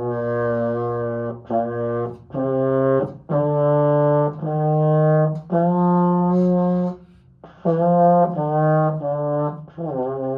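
Baritone (euphonium) playing a slow scale of separate held notes, starting on low B flat, climbing step by step to a longer top note and then stepping back down. It is a beginner's demonstration of moving up and down from the starting B flat.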